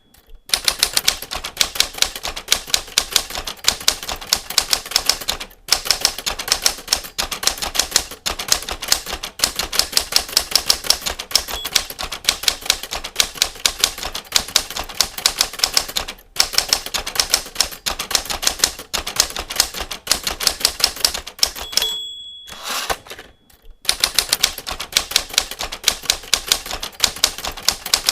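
Manual typewriter keys struck in a fast, steady stream of clacks. About three-quarters of the way through, the end-of-line bell dings once, then the typing pauses briefly before resuming.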